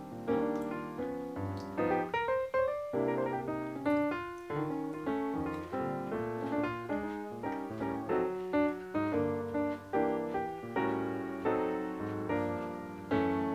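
Background piano music, a melody of struck notes that ring and fade, one after another.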